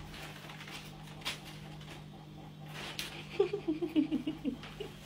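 A plastic carrier bag crinkling in a few brief rustles as a cat pushes its head into it, over a low steady hum. About three and a half seconds in comes a short run of soft, low voice-like sounds.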